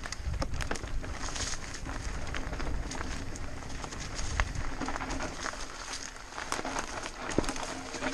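Mountain bike rolling down a dirt singletrack strewn with dry leaves: tyres crunching over leaves and loose ground, and the bike rattling and clicking over bumps, over a low rumble of wind on the microphone.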